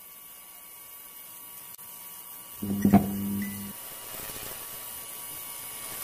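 Steady electrical hum and hiss of a neon-sign sound effect, swelling into a louder low buzz for about a second, with a sharp click about three seconds in.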